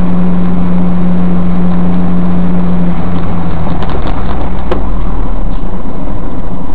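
Car driving, recorded by a dashcam inside the cabin: loud, steady engine and road noise. A steady low drone drops away about three seconds in, leaving rougher noise with a few faint clicks.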